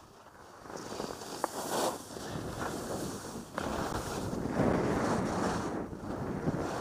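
Wind rushing over a skier's camera microphone, mixed with the hiss and scrape of skis on snow. It starts quiet and grows louder in uneven swells through the second half.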